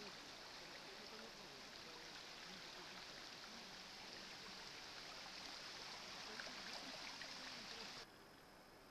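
Faint, steady rush of the swollen, flooding Bečva river. It cuts off suddenly near the end.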